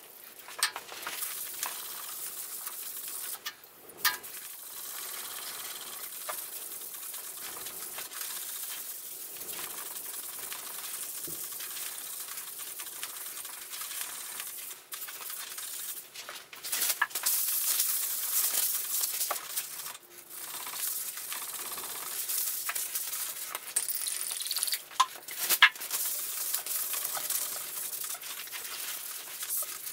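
Aerosol spray can hissing as it sprays the cast iron T-slot table. About halfway through, louder rough scrubbing strokes by hand over the slotted surface take over, with a few sharp knocks.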